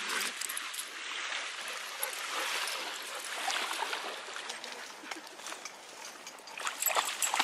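Shallow river water lapping and trickling at a sandy shore, a steady hiss with small splashes gathering near the end as a dog wades in the shallows.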